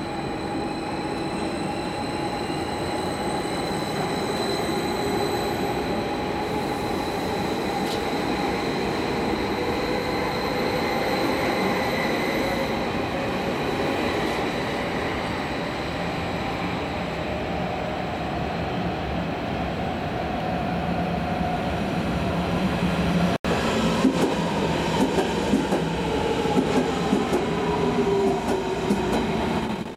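ODEG Stadler KISS double-deck electric train pulling out of the station, its motors whining with tones that glide in pitch over the rumble of wheels on rail. After a sudden cut about 23 s in, the rail noise carries on with sharper clacks.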